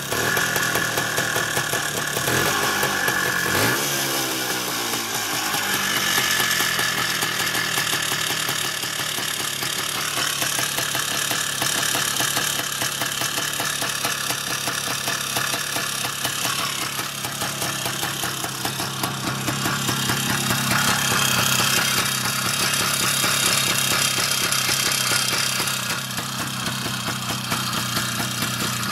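IZh Planeta-5 motorcycle's single-cylinder two-stroke engine running, its revs shifting a few seconds in and then rising and falling gently. A knock runs through the running, which is put down to a worn piston pin.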